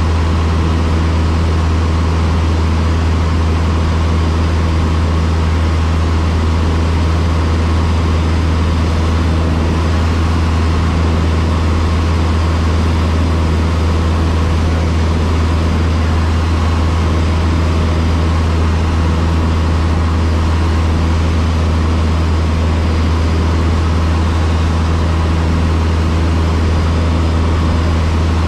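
Cessna 152's four-cylinder Lycoming piston engine and propeller running at a steady power setting, a constant loud drone with a deep hum and no change in pitch, as in level flight.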